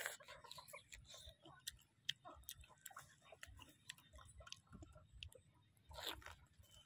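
Biting into a slice of mango, near the start and again about six seconds in, with soft chewing and small mouth clicks between the bites.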